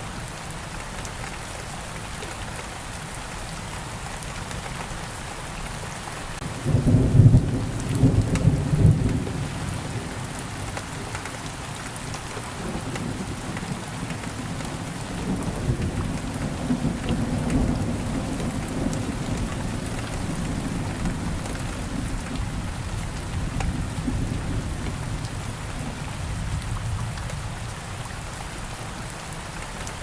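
Steady rain falling, with a sudden loud clap of thunder about six seconds in. Low rolling thunder then rumbles on for much of the rest and eases off near the end.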